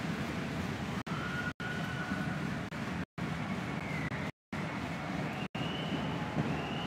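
Ice hockey arena crowd noise as the home side celebrates a goal, with siren-like tones sliding up and down over it. The sound cuts out completely for a split second several times.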